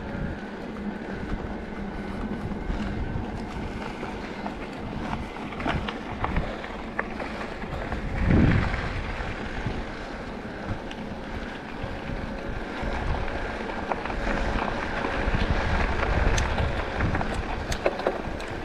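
Riding noise from an enduro e-bike on a dirt trail: wind buffeting the microphone over tyre rumble, with scattered clicks and rattles from the bike. A louder gust of wind hits the microphone about eight seconds in.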